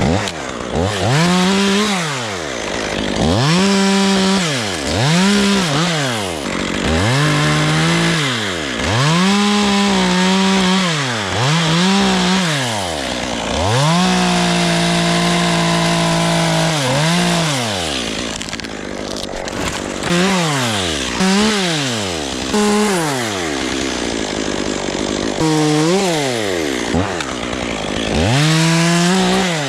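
Two-stroke chainsaw cutting chestnut oak, its engine revved up and let fall back over and over in short bursts of about a second each, with one longer run at full speed of about three seconds just before the middle.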